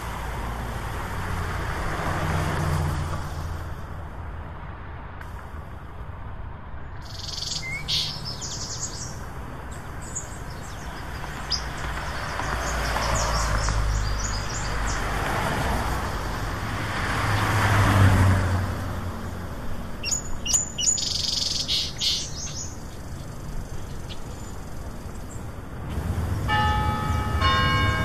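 Road traffic passing in slow swells, vehicles going by one after another, with small birds chirping over it around eight seconds in and again at about twenty seconds. Near the end, a few sustained musical tones begin.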